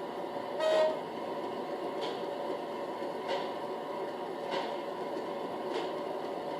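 Model diesel locomotive's DCC sound decoder playing a recorded diesel engine idling through its small onboard speaker, a steady hum with a faint tick about every second and a quarter. A short pitched tone sounds briefly about a second in.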